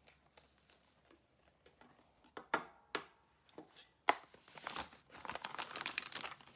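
Plastic powder bags crinkling as they are handled and tipped over a glass jar. A few sharp clicks come about two to four seconds in, and the crinkling goes on busily through the second half.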